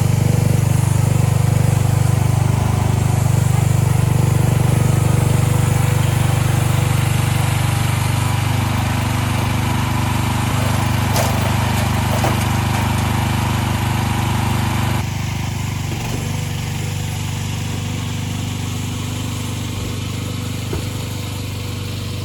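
A small engine running steadily with an even, low hum. About fifteen seconds in, the hiss above it drops away abruptly and the engine carries on a little quieter.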